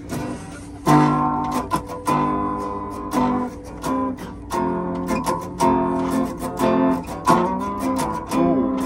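Small-bodied acoustic guitar strummed live, chords ringing out between sharp, repeated strokes.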